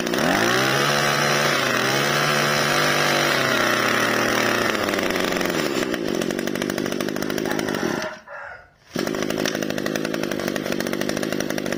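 Small 20cc two-stroke brush cutter engine running. It revs up in the first second, holds high, then drops back to a steady idle about four to five seconds in. The sound cuts out for under a second about eight seconds in, then the engine is heard running again.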